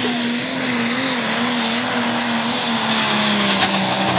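Case Pro Stock pulling tractor's diesel engine running flat out under full load as it drags the weight-transfer sled. The engine note holds steady, then drops a little in pitch near the end as engine speed falls.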